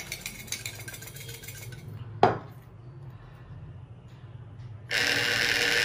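Xóc đĩa counters rattling faintly under a ceramic bowl and plate as they are shaken, then a single knock as the plate is set down on the table about two seconds in. Near the end a detector buzzes for about a second: one vibration, its signal for an odd result.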